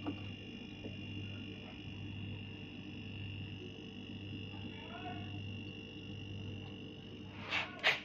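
Refrigerator compressor running with a steady low hum. Two short sharp knocks come near the end.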